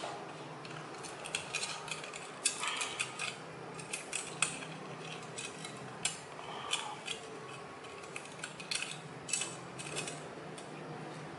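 Thin aluminium strips cut from a drink can crinkling and clicking as they are handled and bent by hand: irregular light metallic clicks, a few sharper than the rest.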